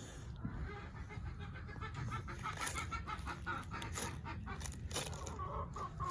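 Chickens clucking, with runs of quick repeated clucks that grow busier through the second half; the birds are unfed and calling for food.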